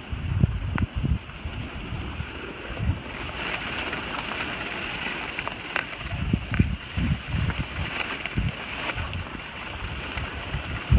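Skis sliding and scraping over packed snow with a steady hiss, while wind buffets the microphone in irregular low gusts; a few short ticks sound here and there.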